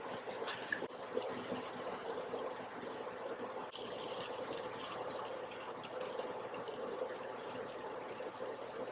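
Steady hiss with faint crackling and a low, even hum underneath.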